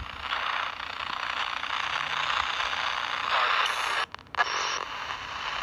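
Ghost box (spirit box) static hissing in short, choppy chunks as it sweeps, with a brief dropout about four seconds in. The investigators take a fragment in it for the word "virus".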